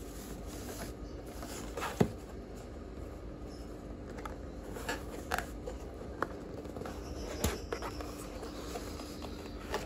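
Hands opening a small cardboard box: faint scraping and rustling of paperboard as the lid is worked loose, with scattered light taps and clicks, the sharpest about two seconds in. A faint steady hum runs underneath.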